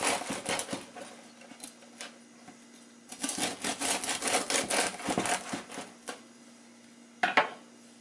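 Serrated bread knife sawing through the crisp crust of a seeded sourdough loaf in quick rasping, crackling strokes: one run at the start and a longer run from about three seconds in, with a pause between. A brief knock near the end.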